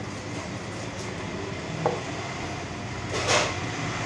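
A heavy knife blade striking a wooden chopping block once, about two seconds in, over a steady low rumble. Near the end there is a short scraping rush as a shark carcass is moved across the block.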